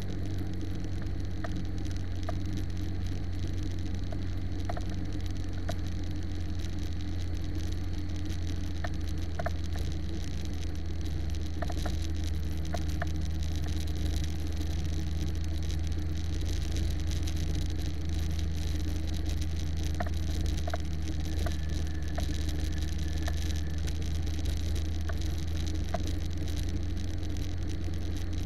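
Steady drone of a small airplane's engine and propeller, heard from a camera mounted on the aircraft, with wind noise over it and a few faint clicks.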